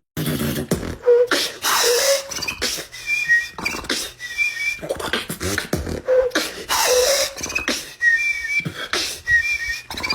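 Human beatboxing: mouth-made kicks, snares and hissing hi-hats in a quick rhythm, with short whistled notes woven in twice, about three seconds in and again near the end.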